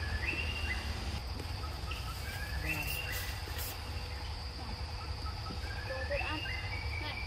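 A steady, high-pitched drone of forest insects runs through. Three times a short series of rising whistled calls cuts across it, near the start, in the middle and near the end.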